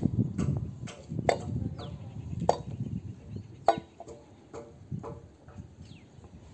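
Hammer blows on wooden planks: sharp knocks at uneven intervals, about one a second, as boards are nailed up for roof slab centering.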